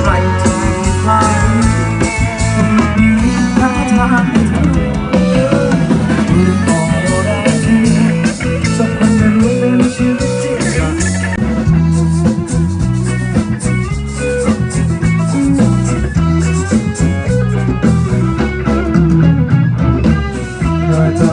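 A band playing an instrumental passage: a lead guitar line over bass and a drum kit, with a steady beat.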